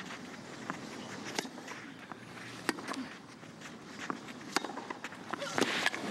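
Tennis rally on a clay court: sharp pops of the ball off the rackets about every one and a half seconds, with shoes scuffing on the clay over a low crowd murmur. The crowd noise swells near the end.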